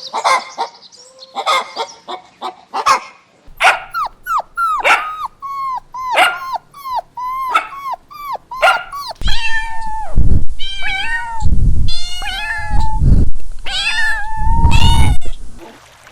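A domestic animal calling: a run of short, high calls about two a second, then from about nine seconds in longer, louder, wavering cries.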